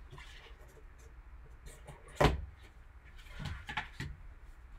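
A cardboard card box being opened by gloved hands: the lid is worked off with light rubbing, a sharp knock comes about two seconds in, and a few softer taps follow near the end.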